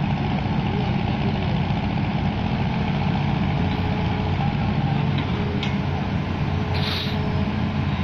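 Diesel engine of a long-reach hydraulic excavator running steadily as the machine swings its bucket down. A brief hiss comes about seven seconds in.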